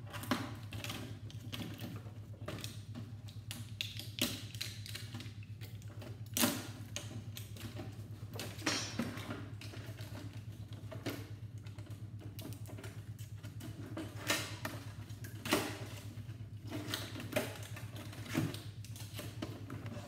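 Scattered clicks, taps and creaks of a flatscreen TV's plastic and metal panel parts being handled and pried at while its circuit board is freed, with a few sharper knocks, over a steady low hum.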